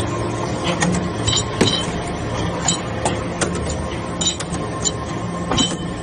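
Hydraulic metal-chip briquetting press running: a steady hum from its motor and hydraulic pump, with scattered sharp metallic clinks and clicks throughout.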